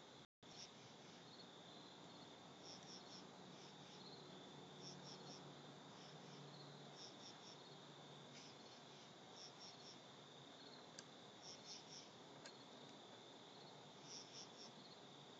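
Crickets chirping faintly in short bursts of three or four pulses every second or two, over a steady high insect hum and background hiss.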